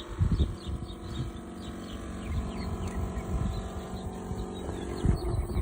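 Outdoor air-conditioning condenser unit running with an irregular low pulsating thump over its steady hum. The thumping is the sign of a bad valve restricting refrigerant flow in the outdoor unit.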